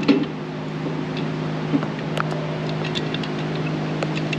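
A few light metal clicks and taps as a nut is started by hand onto a motor-mount bolt, over a steady low mechanical hum.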